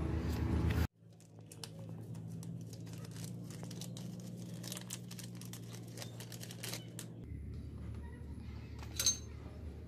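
Thin plastic packet crinkling and tearing as a new sprocket oil seal is unwrapped by hand: a run of small, quiet crackles over a low steady hum, then a single sharper click near the end.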